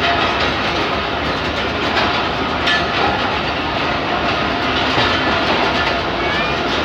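Passenger coaches of a departing express train rolling past close by on the adjacent track: a steady rumble of wheels on rails, with a few sharp clicks as wheels cross rail joints.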